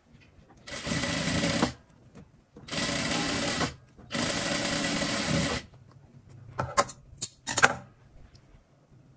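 Electric sewing machine stitching in three short runs of about a second each, with brief pauses between them. A few sharp clicks follow near the end.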